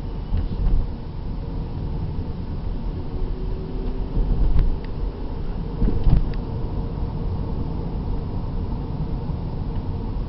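Car driving, heard from inside the cabin: a steady low engine and road rumble, with a couple of light knocks midway.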